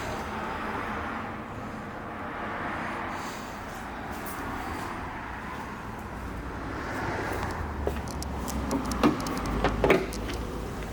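Steady background noise, then a few sharp knocks and clicks about nine to ten seconds in.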